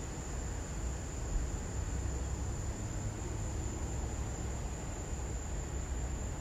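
Steady background noise: a low rumble with a constant high-pitched whine over a faint hiss.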